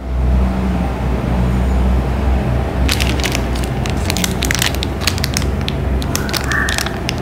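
Plastic candy wrappers being handled and crinkled up close, with dense sharp crackles starting about three seconds in, over a low steady rumble.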